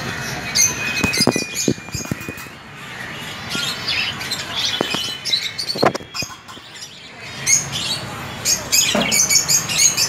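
Small caged parrots, budgies and lovebirds, chirping and chattering in quick high-pitched calls throughout, with a few sharp knocks about a second in and again near the middle.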